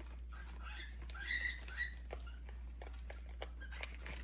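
Small pet birds giving a few short, high squeaky chirps about a second and a half in, among light scattered ticks and taps from beaks and feet.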